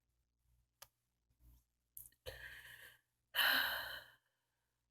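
A woman sighing: a softer breath a little past two seconds in, then a longer, louder sigh about three and a half seconds in. A faint click comes near the start.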